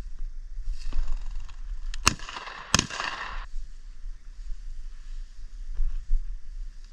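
Two shotgun shots about two-thirds of a second apart, each with a short echoing tail, over a steady wind rumble on the microphone.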